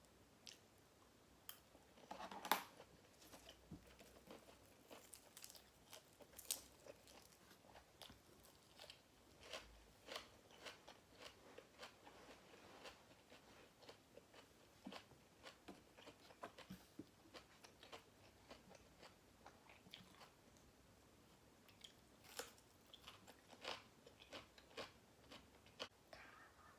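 Close-miked eating: a person biting and chewing food, with irregular crunchy clicks throughout and a louder crunching bite about two and a half seconds in.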